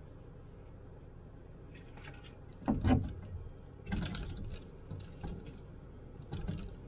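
Clothes hanger being handled and hooked onto a clothes rail, with scattered knocks and clicks and the rustle of a T-shirt; the loudest is a knock a little under three seconds in.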